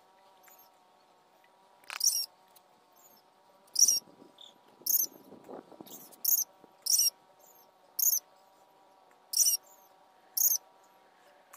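A small animal chirping: short, high-pitched chirps repeated about once a second, over a faint steady hum. A soft rustle sounds between about four and six seconds in.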